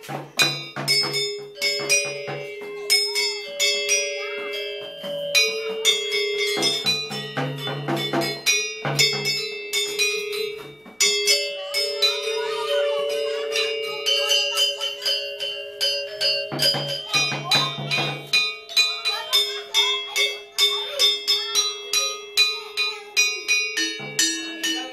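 Balinese gamelan metallophones playing: keys struck in quick runs of ringing, overlapping notes, with lower sustained notes coming and going beneath them.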